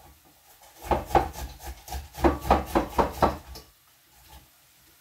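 Hard, unripe tomato rubbed on a hand grater: a run of about eight harsh rasping strokes, about three a second, stopping about three and a half seconds in. The tomatoes are so firm and 'wooden' that they grate like a raw potato.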